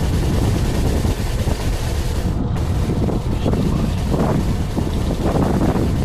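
Wind buffeting the microphone over the steady low rumble of a fishing boat at sea.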